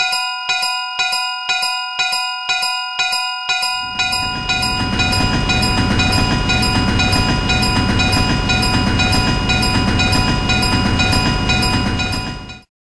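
Railroad crossing warning bell ringing in an even rhythm of about two strikes a second, joined about four seconds in by a train passing. Both stop abruptly near the end.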